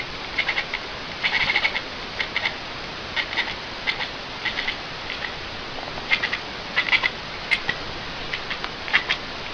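An animal making short high-pitched chirps in quick clusters of two to four, repeating every half second or so over a steady hiss.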